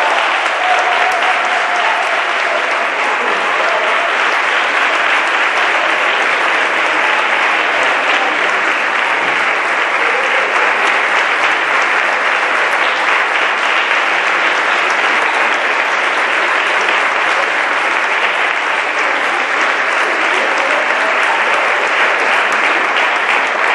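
Audience applauding in a long, steady, unbroken round of clapping.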